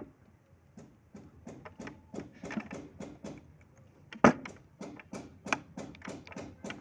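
Steel spanner clicking and scraping on a stiff screw on a sewing machine's feed mechanism as it is worked loose, in short irregular metal clicks and knocks. The loudest knock comes about four seconds in. The screw is being loosened so the feed dog, which sat too low and made the fabric bunch, can be raised.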